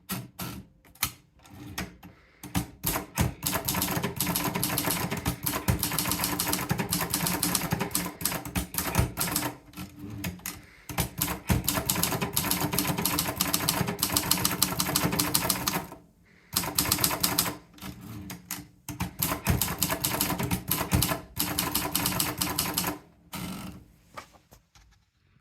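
Torpedo 10/50 manual typewriter being typed on: rapid keystrokes clattering in long runs, broken by a few short pauses.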